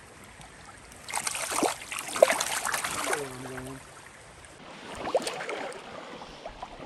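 Water splashing in a shallow, fast river as a rainbow trout is let go from the hands and swims off, loudest for about two seconds starting a second in, with lighter splashing a few seconds later over the steady rush of the current.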